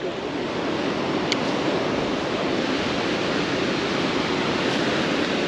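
Steady rush of flowing water, an even hiss with no break.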